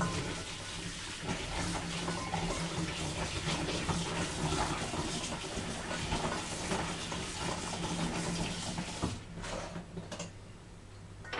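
Kitchen tap running into the sink as figs are rinsed under it by hand. The water is shut off about nine seconds in.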